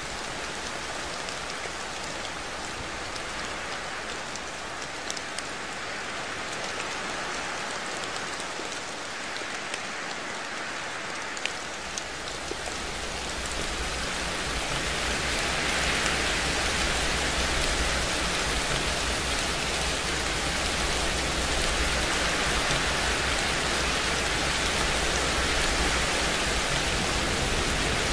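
Steady rain with scattered drop ticks, swelling about halfway through into a louder, even hiss.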